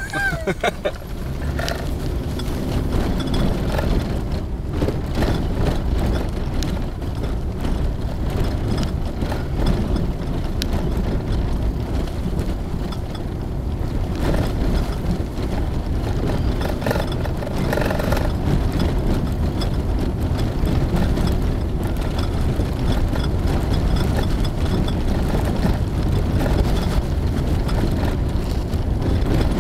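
Four-wheel drive vehicle driving along a rough sandy dirt track, heard from inside the cabin: a steady low engine and tyre rumble with frequent knocks and rattles as it goes over bumps.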